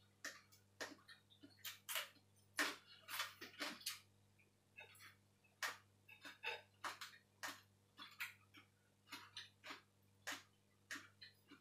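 Faint, irregular wet clicks and smacks of eating and of fingers picking through a bowl of noodle salad, a few to the second.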